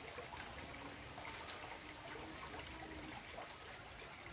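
Small, clear, slow-flowing stream trickling faintly and steadily.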